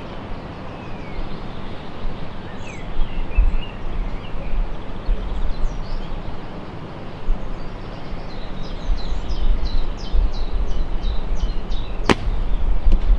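Wind rumbling on the microphone in gusts, with birds chirping, then near the end a single sharp snap as the string of an ILF recurve bow, Morrison Max 4 limbs on a Dryad Epic 17 riser, is released and an arrow is shot.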